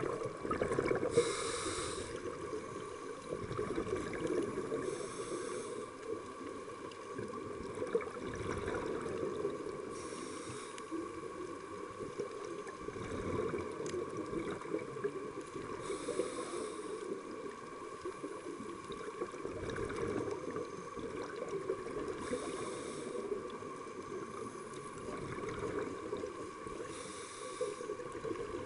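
Scuba regulator breathing recorded underwater: a short hiss of breath about every five seconds over a steady underwater rumble, with low scuffs as hands dig through the sand.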